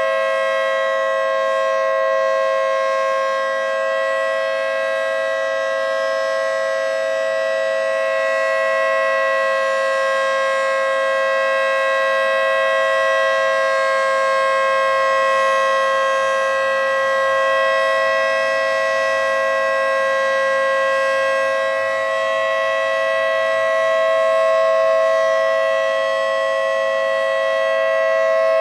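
Federal Signal 2T22B two-tone outdoor warning siren sounding its full-alert steady signal: a loud, held two-note chord at constant pitch that swells and fades slightly in loudness.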